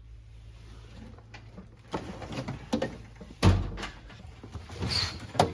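Metal tool chest drawers sliding shut and open, with rattling knocks and one louder thud about three and a half seconds in.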